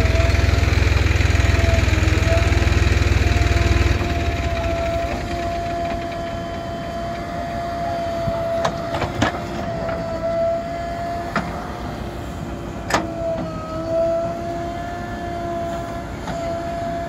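JCB 3DX backhoe loader running as it digs and dumps soil with its backhoe, a steady whine wavering slightly in pitch. A heavy low rumble cuts off suddenly about four seconds in, and there are a few sharp knocks in the middle.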